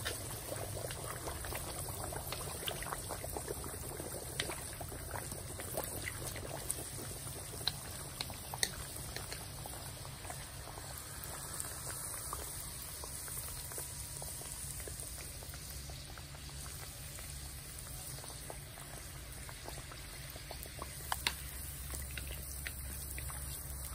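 Hot oil in a wok sizzling and bubbling steadily as rounds of dough deep-fry and puff, with scattered sharp crackles.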